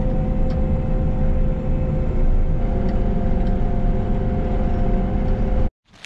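John Deere combine heard from inside the cab: a steady engine drone with steady whining tones on top. It cuts off suddenly near the end.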